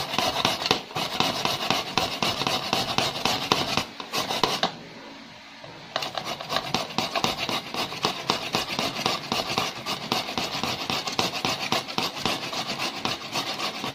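Raw potato being grated on a flat stainless-steel hand grater, rapid rasping strokes one after another, with a short pause about five seconds in.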